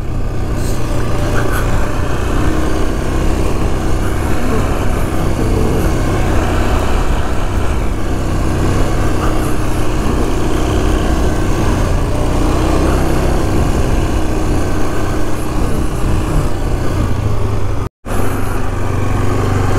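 A 2008 Yamaha Grizzly 450 ATV's single-cylinder four-stroke engine running steadily under way on a dirt trail. The sound cuts out for an instant near the end.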